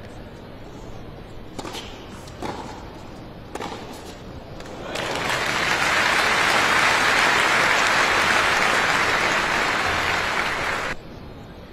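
A tennis rally: a few sharp strikes of racket on ball, then the arena crowd applauding the point for about six seconds, cut off suddenly near the end.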